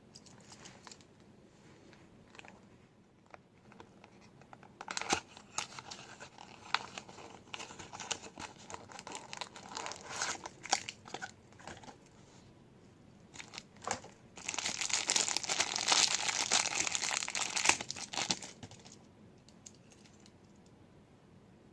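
Toy packaging being handled and opened: scattered crinkling and crackling for several seconds, then a louder stretch of continuous crinkling and tearing lasting about four seconds, which dies away near the end.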